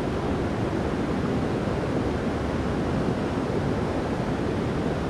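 Creek water rushing, a steady, even noise without breaks.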